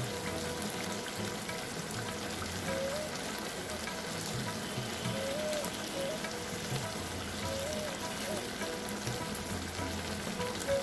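Fish-head and rice curry sizzling steadily in a kadai, with faint flute-like background music.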